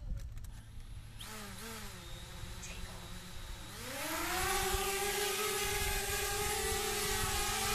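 Quadcopter drone's motors and propellers spin up to idle about a second in with a steady whir. Near the middle they rise sharply in pitch and get louder as the drone lifts off, then settle into a steady hovering whine.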